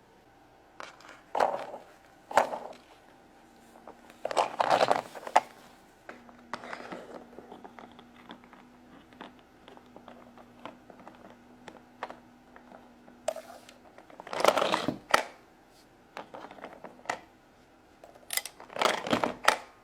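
Small plastic toy figures handled and set down on a plastic toy playset: scattered clicks and knocks with short rustling bursts, the loudest about four to five seconds in and again about fifteen and nineteen seconds in.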